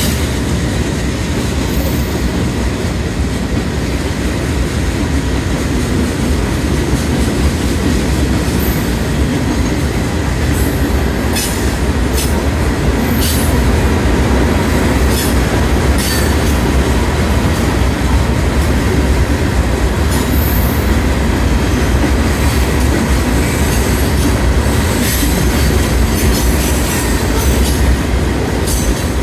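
Freight train cars rolling past close by, a steady rumble of wheels on rail with occasional short high-pitched wheel squeals from about ten seconds in.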